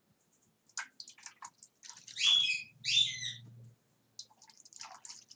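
A bird chirps a few times, then gives two loud squawks about two and three seconds in.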